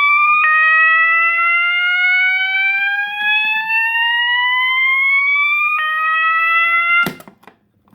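System Sensor MASS fire alarm sounder sounding its slow whoop tone, which is really loud: a tone that rises steadily over about five seconds, then drops back and starts rising again. About seven seconds in the alarm cuts off with a click as the Notifier BNG1 pull station is reset, and a few small handling knocks follow.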